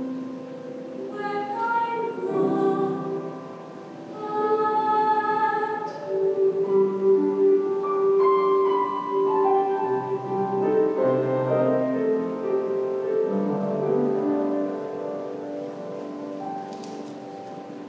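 Grand piano playing the slow closing bars of the song's accompaniment, in held chords that grow quieter over the last few seconds.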